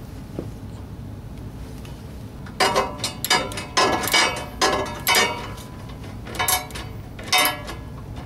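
Socket wrench ratcheting in about six short bursts of metallic clicks, starting about two and a half seconds in, as the nut securing a new snow blower auger shear pin is tightened.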